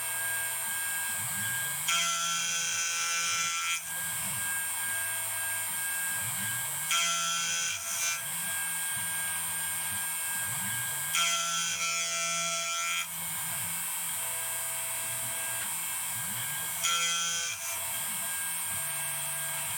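Home-built desktop CNC milling machine running: a small motor whines steadily while the axis motors drive the table, their low pitch gliding up and down as they speed up and slow down. It gets louder and brighter in stretches of one or two seconds, about every four to five seconds.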